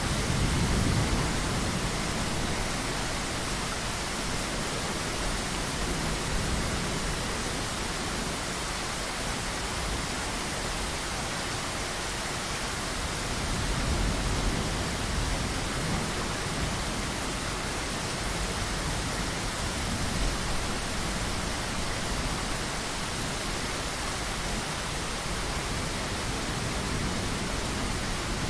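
Heavy, steady rainfall making a dense hiss, with low rumbles of distant thunder swelling near the start and again about halfway through.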